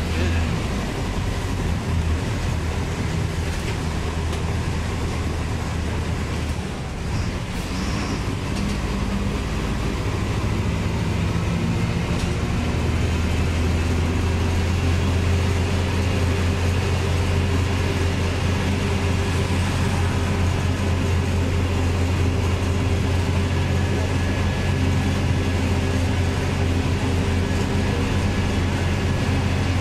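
Cabin sound of a Marcopolo Torino city bus under way: the diesel engine drones steadily with road noise, dipping briefly around seven seconds in, then holding a steady note again.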